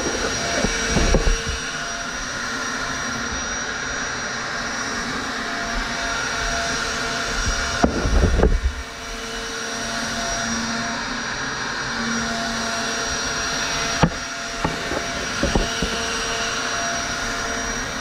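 Triton router running steadily while it is guided along a profiling jig, cutting a foam surfboard blank. Scattered knocks break through the steady whine, the loudest a low thump about eight seconds in and a sharp click near fourteen seconds.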